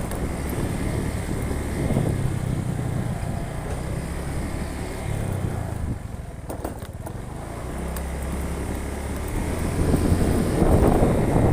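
A vehicle engine running on the move, its pitch shifting now and then, with wind noise on the microphone; it grows louder near the end.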